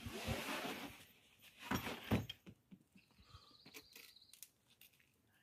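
A bouldering climber's loud, breathy exhale, then short grunts of effort about two seconds in as he pulls through moves on the overhang.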